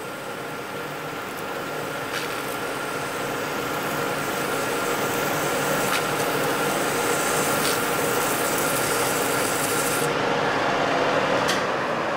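Colchester lathe running while a strip of abrasive cloth is held against the spinning steel shaft, giving a steady hissing rub over the lathe's hum, growing louder. About ten seconds in the rubbing hiss stops as the cloth comes off, leaving the lathe running.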